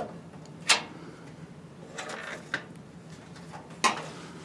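Two sharp metallic clicks about three seconds apart, with a soft rustle between them, from a sheet-steel drawer of a Helmer cabinet being handled as its tabs are bent into place.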